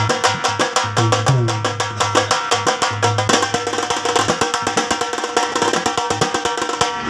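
Dhol drum music: rapid, even drum strokes over pitched melodic lines and a deep bass, the bass dropping out about three seconds in while the drumming carries on.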